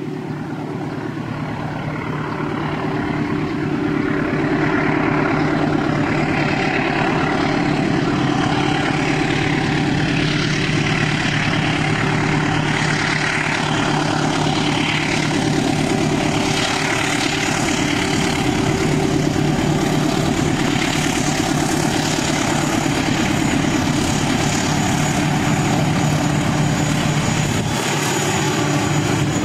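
Diesel locomotive hauling a freight train of tank wagons, its engine drone growing louder over the first few seconds as it approaches, then holding steady and close.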